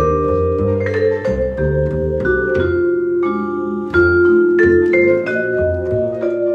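Jazz duo of vibraphone and upright string bass: mallet-struck vibraphone notes ringing over plucked bass notes.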